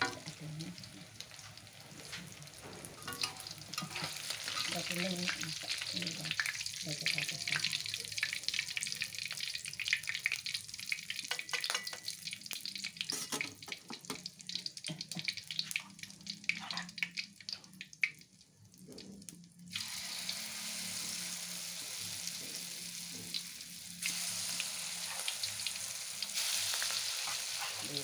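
Tofu-and-egg batter fritters deep-frying in hot oil in a wok, sizzling and crackling, with a metal spatula clicking and scraping against the wok as the cooked batch is lifted out. The oil goes briefly quieter about two-thirds through, then a steady sizzle starts as a fresh batch of batter goes into the oil.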